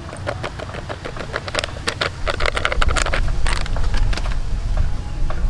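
Plastic sachet of flour crinkling and crackling as it is shaken and squeezed empty over a stainless steel bowl, a dense run of crisp clicks that thins out near the end.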